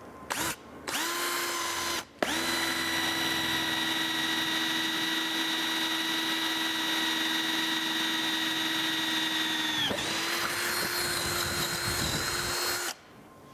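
Electric drill boring a hole through a heavy-gauge carbon steel roasting pan: a steady motor whine. It starts and stops twice in quick short runs, then runs steadily for about eight seconds, sags in pitch for a moment and runs a few seconds more before stopping.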